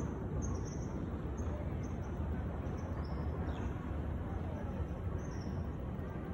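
Steady low rush of wind across a phone microphone on an open chairlift, with faint short high bird chirps scattered through.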